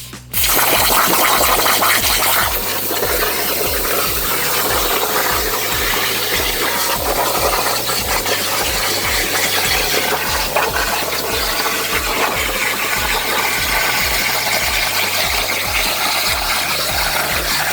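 CNC plasma cutter cutting sheet metal, a loud steady hiss, over background music with a steady beat of about two pulses a second.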